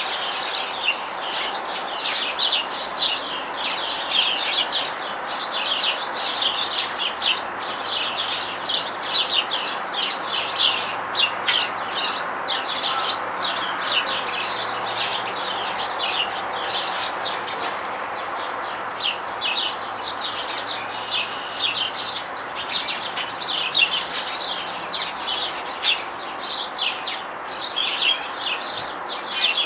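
Dense chorus of many small birds chirping, several short chirps a second almost without a break, over a steady background hiss.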